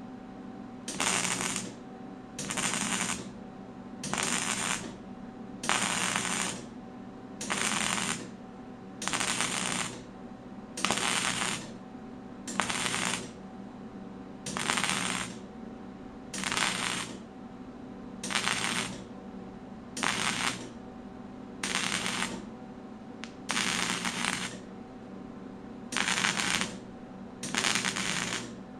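MIG welder stitch-welding thin sheet metal: short bursts of arc crackle, each just under a second, repeated about every two seconds, sixteen in all, over a steady shop hum.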